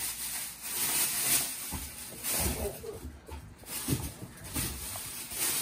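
A child chewing and slurping juicy watermelon chunks off a fork, with soft wet mouth noises that come and go.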